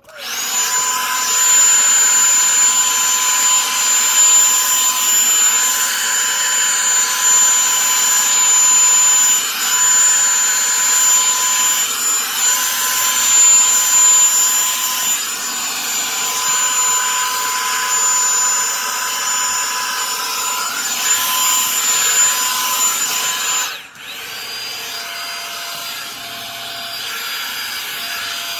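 Revlon One-Step Volumizer hot-air brush running, a steady rush of air with a high motor whine. Near the end it cuts out for a moment and carries on quieter with a lower whine.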